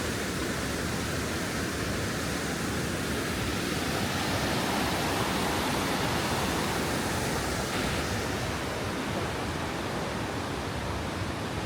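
Düden waterfall: water falling and rushing steadily.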